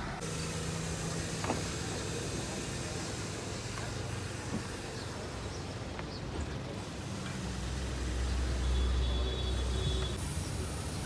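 A motor vehicle's engine running steadily with a low hum. A deeper, louder rumble swells in about two-thirds of the way through and then eases off.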